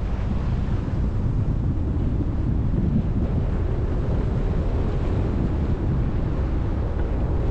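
Wind buffeting the microphone of a camera mounted outside a moving car, over the steady low rumble of the car's tyres on the road.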